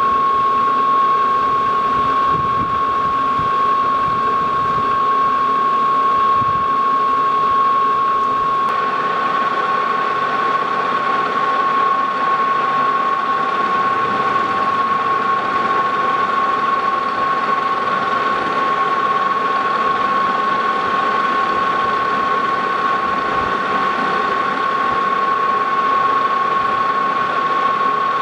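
Lodge & Shipley Model X metal lathe running with a steady high whine while a high-speed steel parting tool is fed in by hand to part off a steel bolt. About nine seconds in the sound grows fuller and rougher as the cut goes on.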